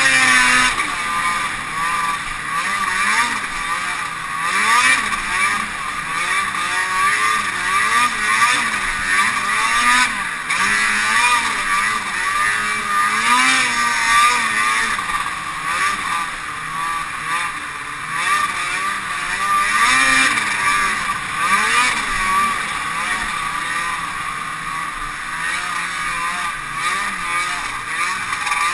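Ski-Doo Formula Z 670 snowmobile's two-stroke twin-cylinder engine running under way, its revs rising and falling again and again as the throttle is worked.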